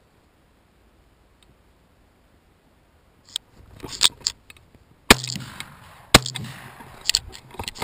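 Two gunshots about a second apart, each a sharp crack followed by a short low rumble. Before them come rustling and knocks of someone moving fast through low brush, and more knocks near the end.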